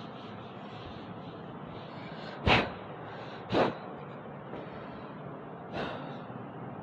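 Steady room hiss with three short, sharp breaths: two close together a few seconds in and a third near the end.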